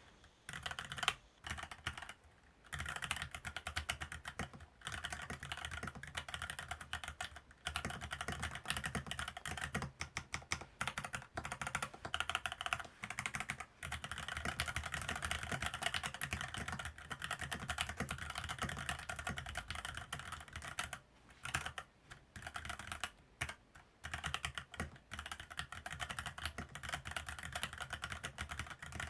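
Typing on a Varmilo keyboard with Sakura pink electro-capacitive (contactless EC) switches: a fast, continuous run of keystrokes, broken by a few short pauses.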